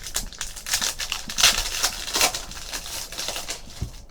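Trading cards and packs being handled by hand: a rapid run of short rustles and clicks.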